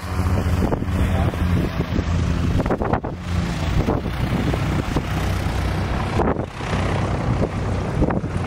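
Mooney M20 single-engine propeller plane landing, its engine droning steadily at low power through touchdown and rollout, with wind noise on the microphone.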